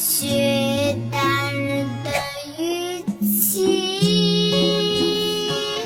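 A song playing: a high singing voice holding long, gliding notes over instrumental backing.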